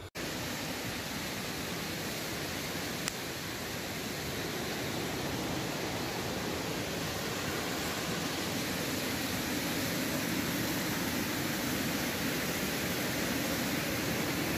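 Steady rushing of a nearby waterfall, an even hiss of falling water, with a single faint click about three seconds in.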